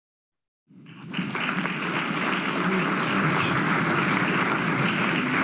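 Audience applauding, starting about a second in, swelling quickly and then holding steady.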